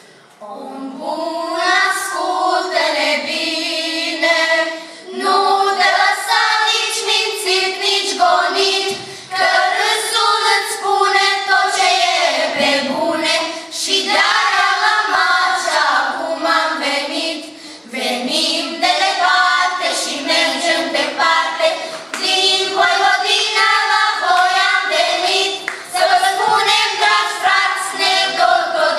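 A group of girls singing together, starting about a second in, in phrases broken by brief pauses.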